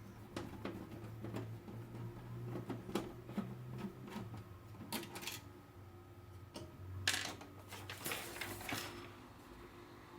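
Scattered clicks, taps and knocks, with a burst of rustling about seven seconds in, as hands handle computer parts during a PC build. A steady low hum runs underneath.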